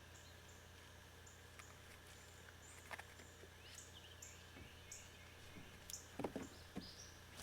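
Faint, high-pitched chirps from a small calling animal, repeated steadily about every two-thirds of a second over a low background, with a couple of soft knocks.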